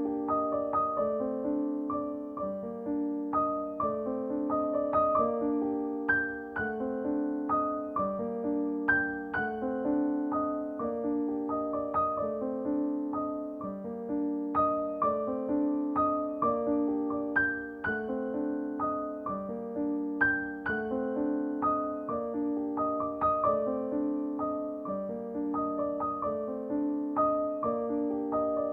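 Background music: a gentle piano or electric-piano tune with a steady, repeating rhythm.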